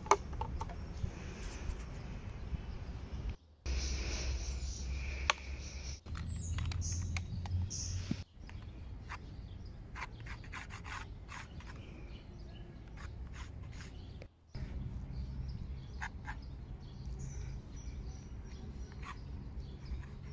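Outdoor ambience in short cut segments: a steady low rumble, with scattered bird chirps and light clicks and scratches from handling the wooden easel and a pencil on sketchbook paper.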